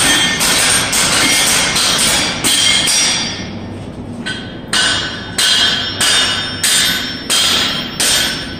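Blacksmith's hammer striking iron on an anvil, roughly one to two blows a second, each with a metallic ring, with a short pause a little before midway.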